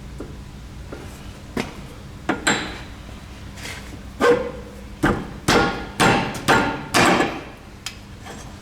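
Hammer strikes on a drive shaft seized in the front wheel hub: a few light knocks, then about seven hard ringing blows, roughly two a second, starting about four seconds in.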